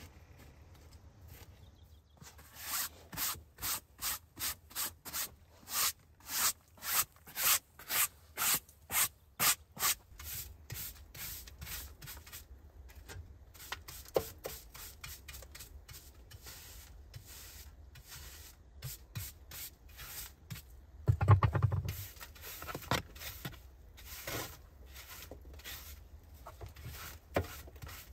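Rhythmic rubbing strokes by hand, about two a second, for several seconds. Then quieter scattered handling sounds and one heavy thump about three-quarters of the way through.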